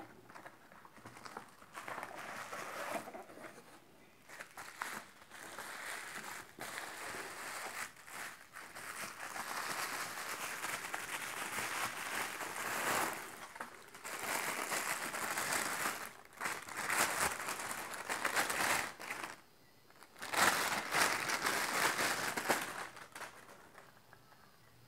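Plastic bubble wrap crinkling and rustling as it is handled and pulled off a camera lens, in bursts with short pauses, the loudest stretch a few seconds before the end.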